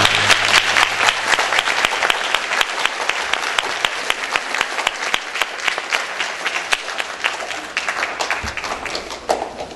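Congregation applauding: dense clapping that gradually thins out and fades.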